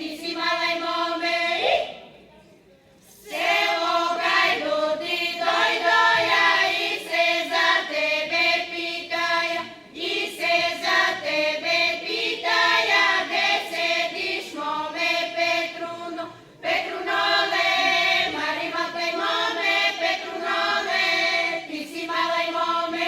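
A choir singing in long sustained phrases, with a pause of about a second near two seconds in and short breaks between later phrases.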